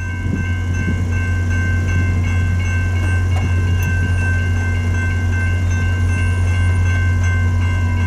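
Level-crossing warning bells ringing steadily at about two strikes a second as the gates come down, over a strong steady low drone.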